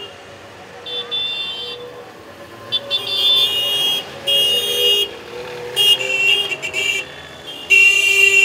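Vintage car horns tooting as the cars drive past: about five short blasts of a second or so each, the last and loudest near the end, over a low engine rumble.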